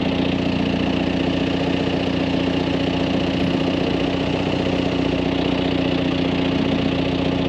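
Tractor engine running steadily at a constant speed, with an even hum that does not rise or fall.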